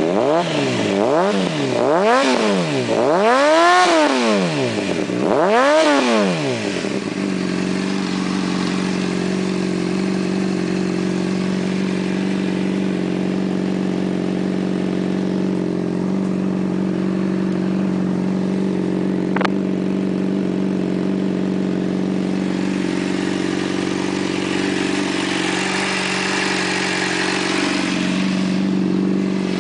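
2005 Honda CBR600RR inline-four sportbike engine through a Two Brothers aftermarket exhaust: about five quick throttle blips in the first few seconds, the last two revving highest. It then settles to a steady idle.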